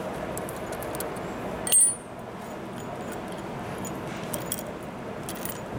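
Small metallic clicks of a hex key and the steel head of a Halder assembled hammer being worked apart by hand, with one brief, bright metallic clink about two seconds in. Steady background noise underneath.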